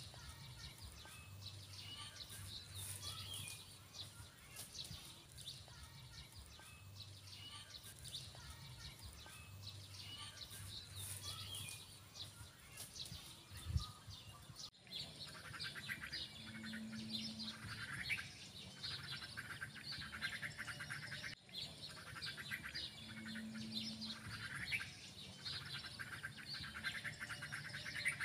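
Birds chirping and calling, many short calls overlapping throughout. A single low thump comes about halfway through, and the sound cuts out for an instant twice in the second half.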